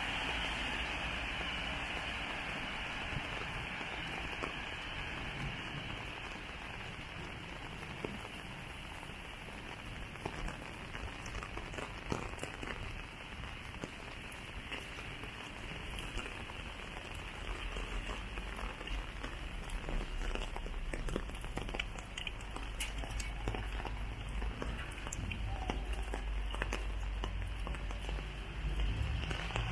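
Steady rain falling on a wet street, a continuous hiss with scattered drop ticks. A low rumble comes in about halfway through.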